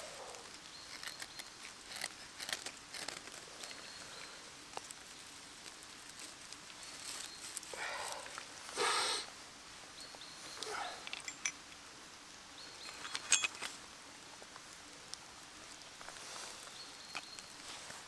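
Dry twigs and grass tinder rustling and snapping as they are handled, with two short rasping scrapes about eight and nine seconds in from a steel flint striker throwing sparks onto a Vaseline-smeared cotton wool ball.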